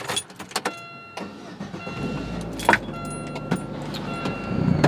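Car keys jingling and clicking near the start, then a repeating high electronic chime from the car's dashboard. About two seconds in, the car's engine starts and keeps running at a steady low idle.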